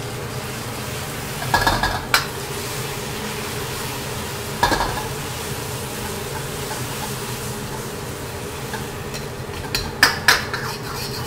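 Egg and shredded vegetables sizzling in an oiled wok, being stirred continuously with a metal spoon to break the egg into small curds. Metal scrapes and clinks against the wok come about two seconds in, near five seconds and twice near the end.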